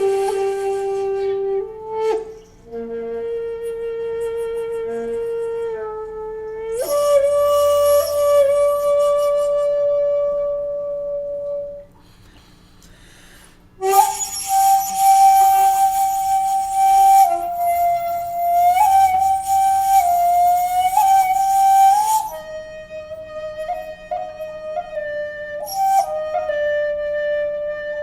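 A 2.4-shaku shakuhachi made by Ichijo Kobayashi, played solo in long held notes with slides and bends between pitches. Some notes are blown with heavy breath noise. The playing stops for about two seconds just before halfway, then resumes with a strong, breathy attack.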